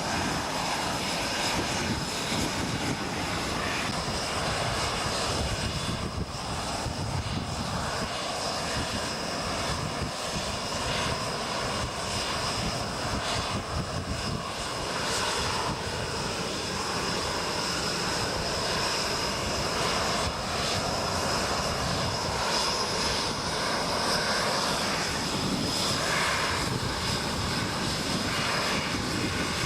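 Tornado GR4 jets' Rolls-Royce RB199 turbofan engines running steadily: a continuous loud rushing noise with a steady high whine over it.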